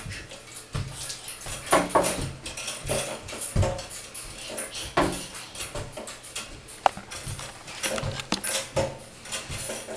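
Two babies bouncing in Jolly Jumper doorway jumpers: irregular thumps of feet pushing off the wooden floor, the springs and straps creaking and squeaking, and short squeals from the babies. About seven seconds in there is one sharp click.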